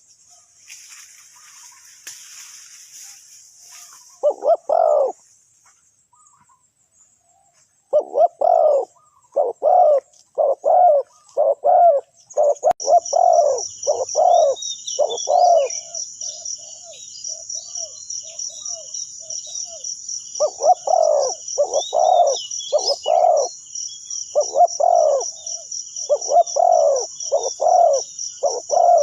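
Spotted dove cooing: a short coo phrase about four seconds in, then two long runs of repeated low coo notes separated by a pause. A steady high insect trill joins about halfway through.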